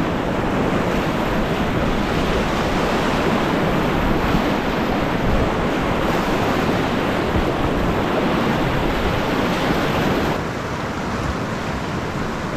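Whitewater rapids rushing loudly around a kayak in a steady, even roar of moving water. About ten seconds in it cuts abruptly to a quieter, steadier river rush.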